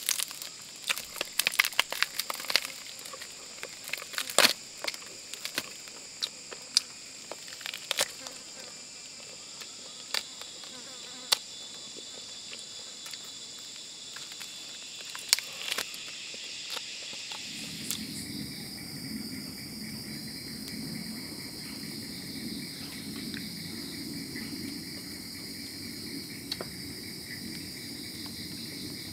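A steady chorus of forest insects, shrill and unbroken. Over it in the first half come many sharp crunching clicks of roasted meat being chewed close to the microphone. After a cut, the insects go on into the night with a steady low rumble beneath them.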